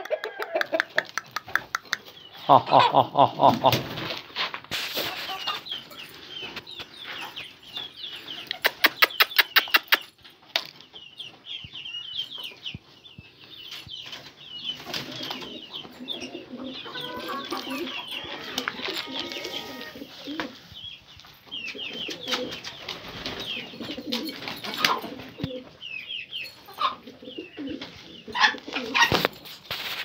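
Domestic pigeons cooing and flapping their wings as they crowd a bowl of grain, with two loud bursts of wing flapping in the first ten seconds. Chickens cluck among them.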